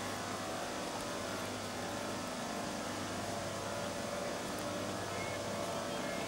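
A steady, even mechanical drone with a constant low hum underneath, unchanging throughout.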